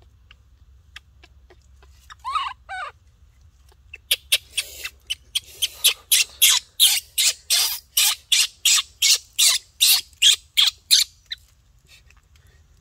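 A bird calling: two short, wavering squeaky notes, then from about four seconds a long run of loud, harsh squawks at about four a second, which stops shortly before the end.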